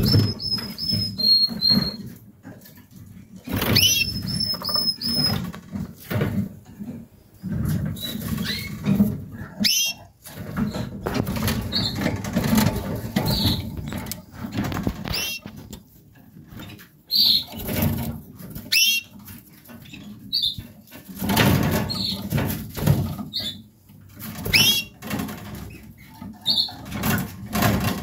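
Portuguese Harlequin canaries chirping with short, quick call notes, some rising, amid wing flutters, rustling and sharp knocks as they hop and fly about the breeding cage.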